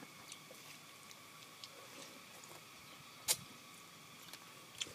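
Quiet mouth sounds of ripe mango being eaten: small wet clicks and smacks, with one sharp click a little past three seconds in and another near the end.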